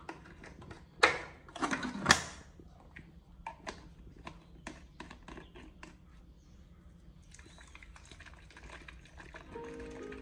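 A plastic baby feeding bottle and formula tin handled while formula is made up: a few loud knocks and scrapes about a second in, then a string of small sharp plastic clicks as the bottle is capped, and a softer rustling near the end.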